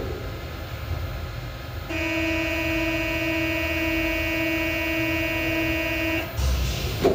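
Paris Métro train's door-closing warning buzzer: a steady pitched buzz lasting about four seconds while the train stands at the platform, followed near the end by the thud of the doors shutting.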